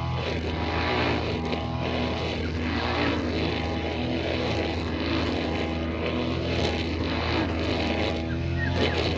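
Small petrol engine of a brushcutter running steadily at working speed, its pitch wavering slightly up and down.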